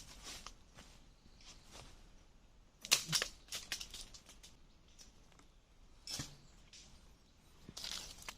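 Scattered short rustles and clicks, with a dense cluster about three seconds in and single bursts about six and eight seconds in.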